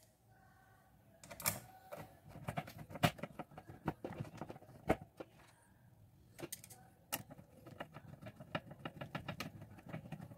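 Screws and a screwdriver being handled while screws are put back into a bread maker's base: irregular light metallic clicks and small rattles, with a few sharper single clicks.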